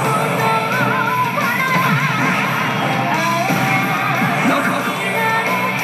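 Basilisk 2 pachislot machine playing its battle background music: a rock track with a wavering, bending guitar lead over strummed guitar accompaniment.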